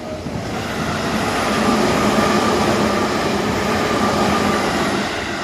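Tobu Skytree Line train passing over a level crossing: wheel and rail noise swells about half a second in, holds steady and loud, then fades near the end as the train clears.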